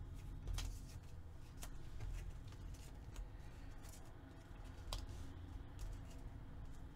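Paper pieces handled and shifted on a tabletop: faint rustling with scattered light crinkles and ticks, several of them about a second apart.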